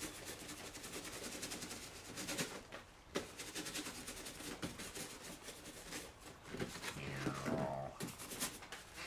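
Paintbrush scrubbing and dabbing paint onto a foam castle-wall terrain strip: repeated short scratchy strokes. About seven seconds in, a brief whine falls in pitch over a low steady hum.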